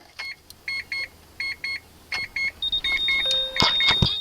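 Repeating pairs of short electronic beeps from the car's warning electronics, with a steady high-pitched whine coming in about two-thirds of the way through. Near the end the FD3S RX-7's 13B rotary engine begins turning over on the starter for a cold start, with the throttle-body parts removed.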